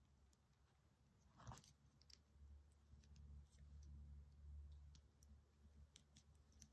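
Faint clicks of a plastic transforming robot toy's joints and parts as they are twisted and folded by hand, with one sharper click about one and a half seconds in.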